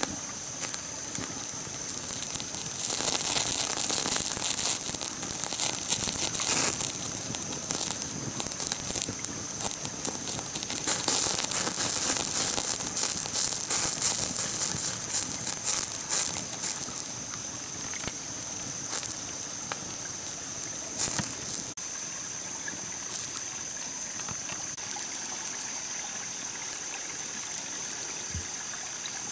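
Open wood fire crackling and hissing under a whole duck roasting on a bamboo spit, busiest for a stretch in the first half, over a steady high whine.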